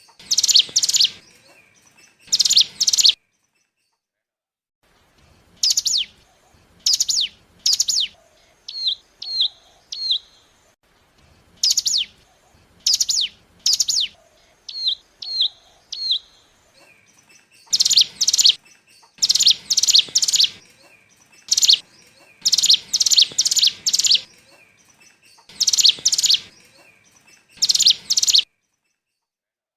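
Ciblek gunung (a prinia) lure call: groups of two to four sharp, high, quick chirps repeated over and over with short pauses between, and a few softer, lower little notes in the middle.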